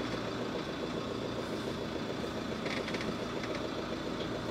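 Camper van engine running steadily at low revs, heard from inside the cab as the camper slowly reverses.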